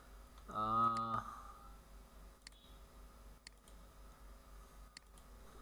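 About four computer mouse clicks, spaced a second or so apart, with a man's short hum of steady pitch about half a second in, the loudest sound.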